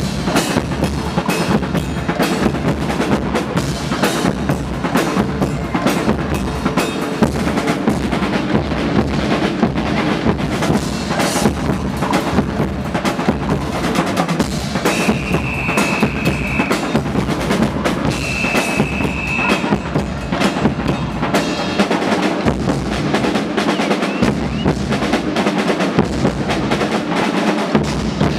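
Guggenmusik band playing: dense, driving drumming on drum kits and big bass drums throughout, with two short, high, held notes about halfway through.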